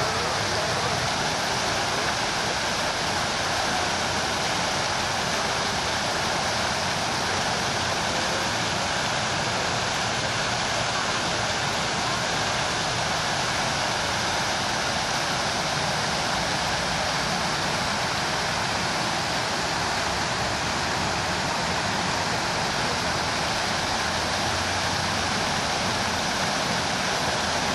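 Buckingham Fountain's jets and cascading tiers falling into its basin: a steady, unbroken rush of water.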